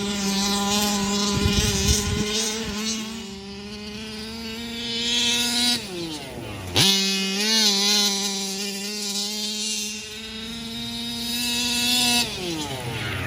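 The small two-stroke gasoline engine of a Rovan RC car running at high revs with a steady buzzing note. The revs drop off about six seconds in, snap back up almost at once, and fall away again near the end.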